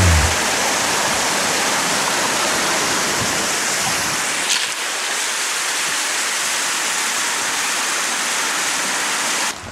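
Mountain stream tumbling down a rocky gully in small waterfalls: a steady rush of falling water, with one brief click about halfway through.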